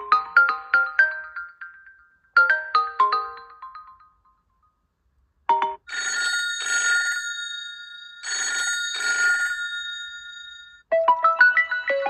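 Huawei P60 Pro ringtones played one after another. A quick rising run of short melodic notes sounds twice, each run fading away. After a brief silence, a bell-like telephone ring comes in two pairs of short bursts, and near the end a different rising melody starts.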